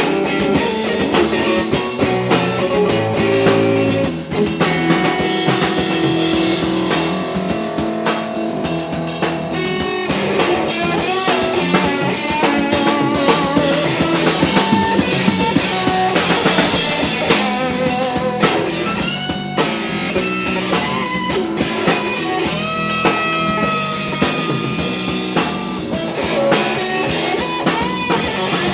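Live blues-rock trio playing an instrumental passage: electric guitar playing held notes with bends and vibrato over electric bass and a drum kit.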